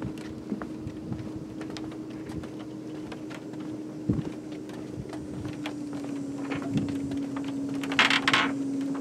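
Footsteps on the wooden boards of a pier, a scatter of knocks and clicks, over a steady low drone that drops slightly in pitch about halfway through; a short rush of noise comes about eight seconds in.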